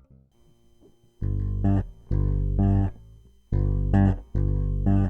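Outro music: bass and guitar chords that come in after a quiet first second, played in short stabs about a second apart.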